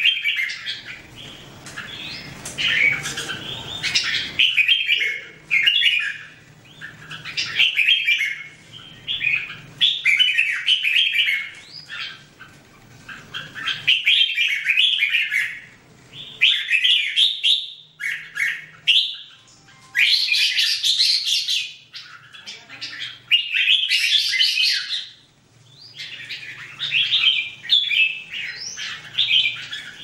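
Red-whiskered bulbuls singing: a run of short, bright chirping phrases, one after another with brief pauses between them.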